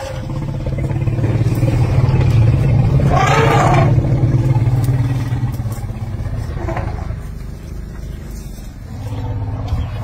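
Steady low hum of an idling engine, louder in the middle. About three seconds in comes a short call that rises and falls in pitch, with a fainter one near seven seconds.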